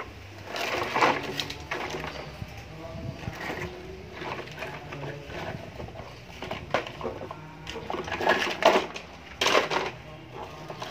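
Large plastic toy dump truck being shoved and scraped across stone paving, with small plastic toys clattering; a few short scraping bursts, the loudest about a second in and again around eight and nine and a half seconds in.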